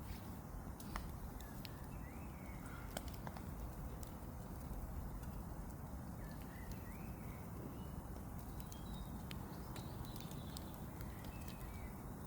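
Faint outdoor ambience: a steady low rush with scattered sharp clicks and ticks, and a few faint high chirps.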